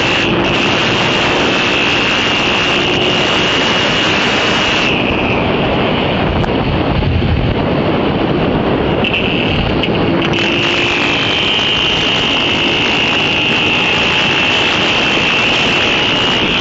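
Small motorcycle engines running at road speed under heavy wind noise on the microphone, one steady loud rush with a high engine whine. The whine drops away for a few seconds in the middle, then comes back.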